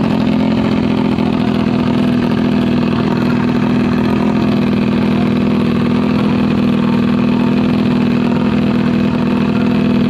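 Motorcycle engine running steadily, holding one unchanging pitch with no revving up or down.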